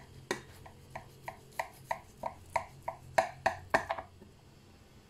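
Kitchen knife sawing through the browned cheese crust of a baked lasagna in a glass baking dish: a run of short, crisp crunching strokes, about three a second, stopping about four seconds in.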